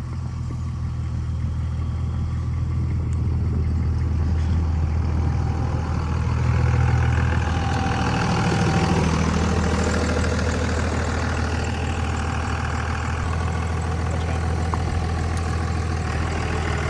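Vehicle engine running steadily under a hiss, growing louder toward the middle and then holding.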